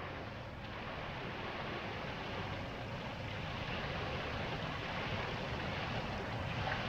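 Indoor swimming pool ambience: a steady wash of noise from the pool water and the hall's air handling, with no distinct events.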